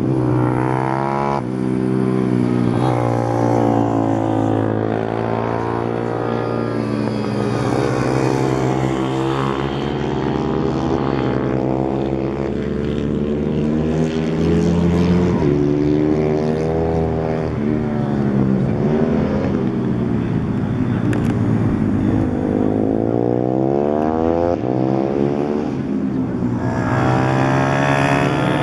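Chinese CG125 copy motorcycle's single-cylinder four-stroke engine lapping a track at speed. Its pitch repeatedly climbs as it revs up, then drops back before climbing again.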